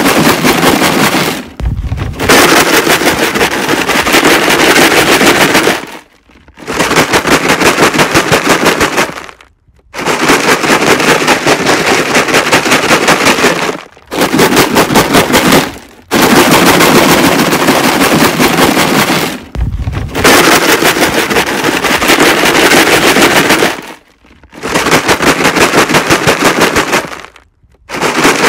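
Rocks rattling inside a plastic jug, shaken hard in bouts of about two to four seconds with short pauses between, around seven bouts in all.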